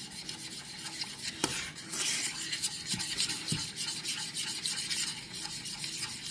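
A utensil stirring praline sauce (melted butter, brown sugar and cream) in a stainless steel saucepan, scraping quickly and continuously against the pan.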